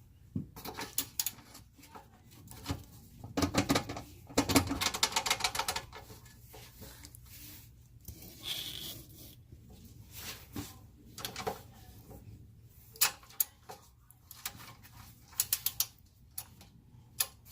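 Socket ratchet and hand tools on rusted exhaust Y-pipe bolts: scattered metal clinks, with a run of quick ratchet clicks about three to five seconds in and more clicking near the end.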